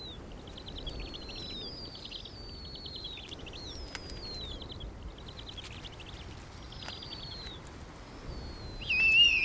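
High, thin bird calls: falling whistles that each break into a quick rattle, repeated about once a second, with a louder wavering squeal near the end.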